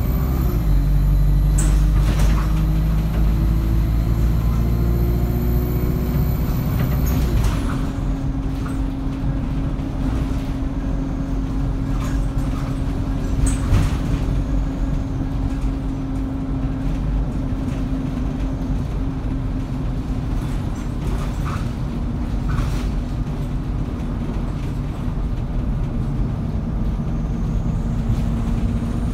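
ADL Enviro200 single-deck bus engine heard from inside the passenger saloon, pulling hard with its note slowly climbing. About seven seconds in the note drops and the engine settles to a steady, quieter drone. The interior gives the odd knock or rattle.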